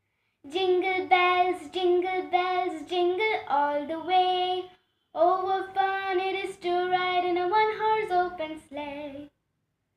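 A young girl singing solo and unaccompanied: two phrases of mostly held, steady notes, with a brief pause about halfway through.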